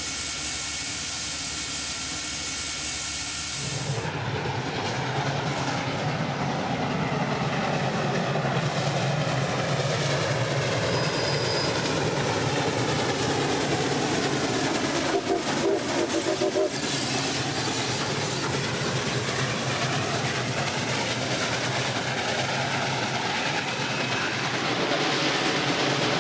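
CPR 3716, a 2-8-0 Consolidation steam locomotive: a steady hiss of steam while it stands, then, from about four seconds in, the locomotive running past under load with its exhaust and its wheels on the rails.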